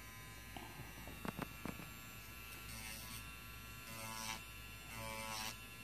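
Kupa Manipro electric nail drill running with a faint steady hum while its bit files a natural nail lightly. A few light clicks come about a second and a half in; from about three seconds in, short strokes about once a second each bring a brief rise of whine and scratchy hiss.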